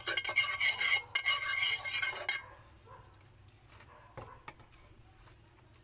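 A metal spoon scraping around a frying pan, spreading a thin layer of oil, for about two seconds before it stops abruptly. A few faint clicks follow.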